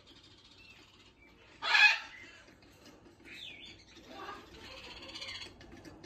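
Alexandrine parakeet giving one short, loud, harsh squawk about two seconds in, followed by quieter scratchy chatter.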